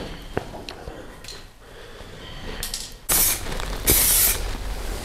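Aerosol spray can of etch primer spraying onto a bare engine block, hissing in bursts that begin about three seconds in.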